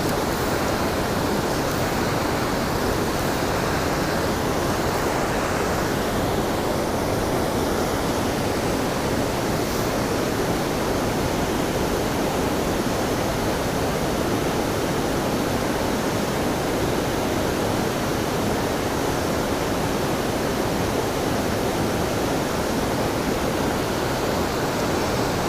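Waterfall: falling water rushing steadily, an even, unbroken wash of noise.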